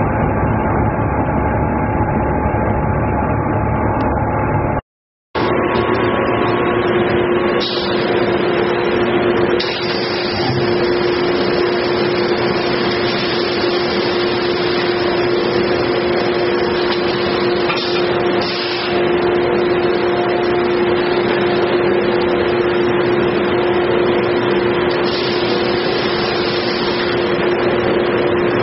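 Steady mechanical running noise of a pulp-moulding bottle-tray making machine, with a constant hum. About five seconds in the sound drops out for a moment and returns with a lower steady hum.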